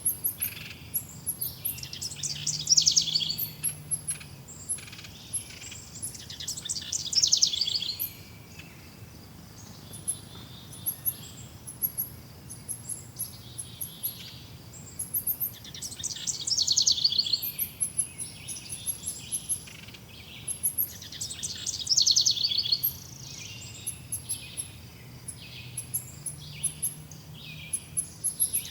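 Several forest birds singing and chirping, one loud rapid trilled phrase repeating every few seconds with many short high chirps from other birds in between.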